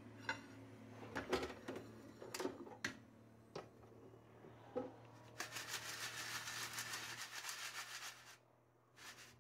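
Philips Airfryer XXL basket handled with a few knocks and clicks, then crisp fries rattling and rustling in the basket as it is shaken for about three seconds, a dry crackly sound that shows they have cooked crispy. A low steady hum runs underneath and stops about seven seconds in.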